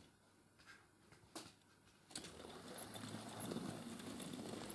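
OO-gauge model locomotive and goods wagons running on track: a few faint clicks at first, then from about two seconds in a clicking rattle of wheels over the rail joints, with the hum of the loco's motor, growing louder as the train approaches.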